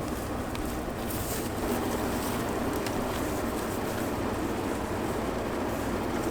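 A motor vehicle running: a steady low rumble under an even rush of noise.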